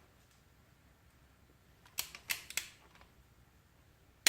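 Click-type torque wrench on an LQ4 6.0 L V8's bolts: three quick sharp clicks about halfway through, the wrench breaking over at its 53 ft-lb setting.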